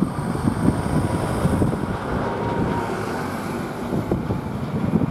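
Wind buffeting the microphone in irregular gusts over the low, steady drone of a convoy of Class 66 diesel locomotives approaching, with their two-stroke EMD V12 engines running.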